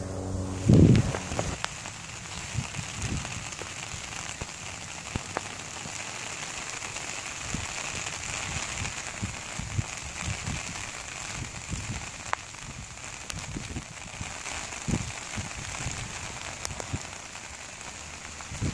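Rain falling on a silicone-waterproofed bed-sheet tarp, heard from underneath: a steady hiss with scattered drop taps. A brief loud thump about a second in.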